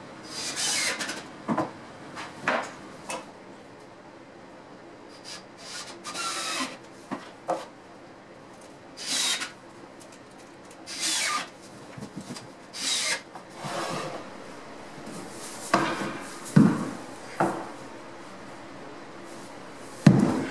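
Short scraping and rubbing sounds on wood, about a dozen separate strokes each under a second. In the last few seconds come several heavier knocks, the loudest as a work boot comes down on the plywood shelf.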